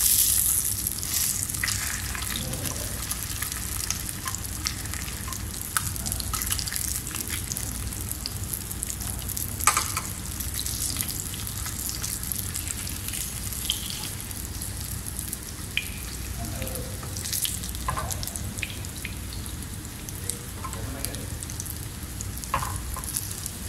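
Tilapia fillets pan-frying in hot oil: a steady sizzle with crackling and spitting, loudest in the first second. A few sharp clicks stand out about ten seconds in and again near the end.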